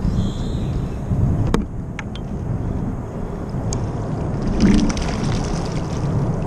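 Wire crab pot being hauled up out of the water beside a kayak: water splashing and gurgling, with a few sharp knocks and a cluster of clattering about two-thirds of the way through, over a steady low rumble.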